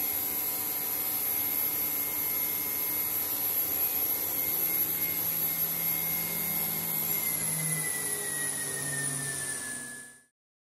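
Microcut Challenger V1000 vertical machining centre running its spindle at speed: a steady high whine over machine noise, the pitch sagging slightly near the end before it cuts off suddenly.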